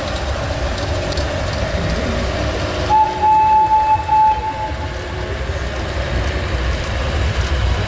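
Tourist road train riding, its engine and carriages making a steady low rumble and rattle. About three seconds in, a horn sounds one steady pitch for about a second and a half, in a few short blasts.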